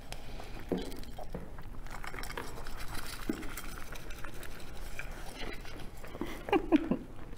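Dall's sheep lambs eating feed from a hand-held bowl and shifting their hooves on a rubber-matted platform scale: scattered light clicks and shuffles.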